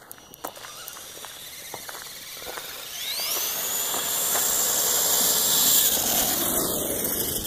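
RC Clodbuster monster truck's electric motors whining as it accelerates toward the microphone. The high whine rises in pitch about three seconds in and grows louder as the truck closes in, then fades near the end. A few light clicks come before it.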